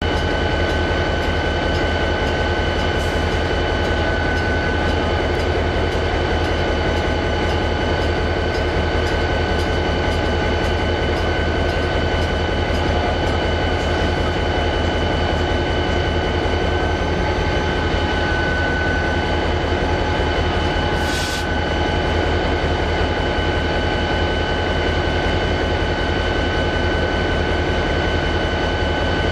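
Diesel locomotive engine running steadily, a constant low hum with a steady whine above it, as bilevel commuter cars roll slowly past on the track. A brief sharp click about 21 seconds in.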